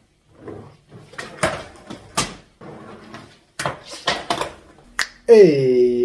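A series of sharp knocks and clacks in a small room, irregularly spaced, then held music with a voice-like drone starting near the end.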